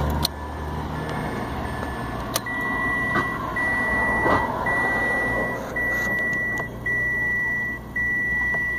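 Dashboard warning chime of a 2015 Mitsubishi Mirage, sounding with the ignition on and the engine not running. A few faint short beeps come first, then a louder high beep repeats about once a second, six times, with a few clicks in between.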